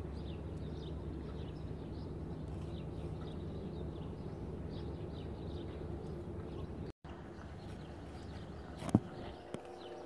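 Steady low outdoor rumble with small birds chirping. Near the end comes a sharp knock, then the faint, steady chord of a distant CN diesel locomotive horn begins.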